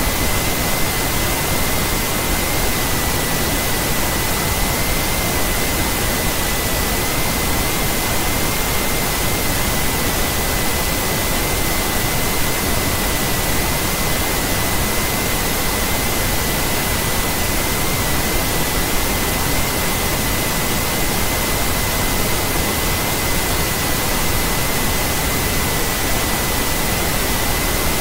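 Loud, steady static hiss spread evenly from low to very high pitches, with a thin steady high whine running through it: electronic noise on the screen recording's audio track, with no other sound.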